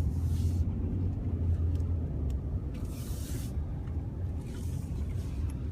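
Car driving, heard from inside the cabin: a steady low engine and road rumble, with three short hissing swells in the upper range, one at the start, one about three seconds in and a fainter one near the end.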